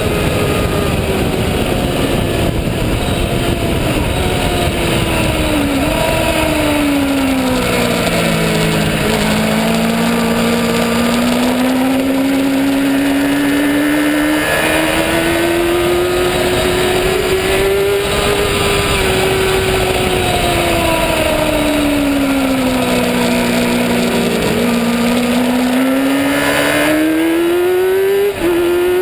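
Race motorcycle engine heard from a camera mounted on the bike, running at high revs at racing speed. Its pitch falls twice as the rider eases off into long corners and climbs again as he accelerates out, rising quickly through gear changes near the end.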